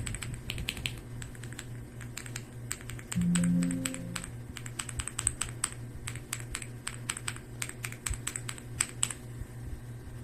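Laptop keyboard being typed on: rapid, irregular key clicks, several a second, stopping about a second before the end. A steady low hum runs underneath, and a brief low tone sounds about three seconds in.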